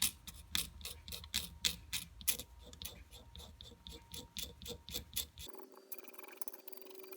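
Sharp ticks or taps repeating about three times a second, somewhat unevenly, that stop abruptly about five and a half seconds in and leave a faint steady hum.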